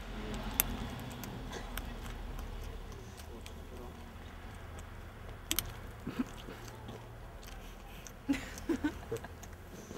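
Coypu gnawing and licking an ice lolly on a stick: scattered wet chewing clicks, with a few sharper ones about halfway through and a quick cluster near the end.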